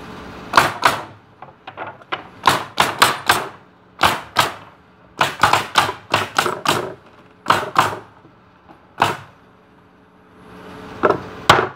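Pneumatic coil nailers firing nails into pallet boards: sharp shots in quick runs of two to four, each run a few tenths of a second apart, about twenty shots in all with short pauses between runs.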